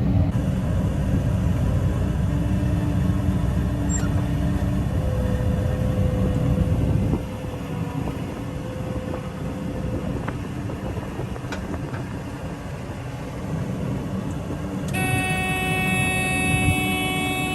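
Combine harvester running as it moves off through a soybean field, heard from inside the cab: a dense, steady engine and machinery drone that drops a little in level about halfway through. Near the end a steady sound of several high tones at once comes in, like a horn or a warning tone.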